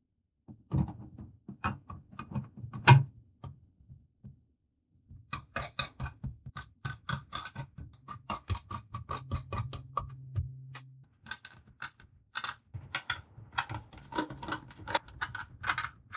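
Small clicks and taps of PC components being handled and fitted together: three separate knocks, then quick runs of light clicks at about four to five a second.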